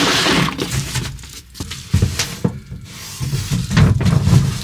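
A plywood sheet being manoeuvred into place against a van wall: scraping and rubbing, with a few sharp knocks about two seconds in.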